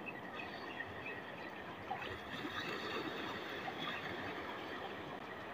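Faint, steady wash of small waves in shallow sea water, with no distinct strikes or rhythm.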